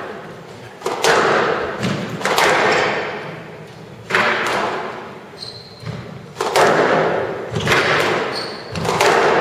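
Squash rally: a series of sharp racket strikes and the ball thudding off the court walls, about one every second, each ringing out in a large hall. Two short high squeaks come through, one midway and one near the end.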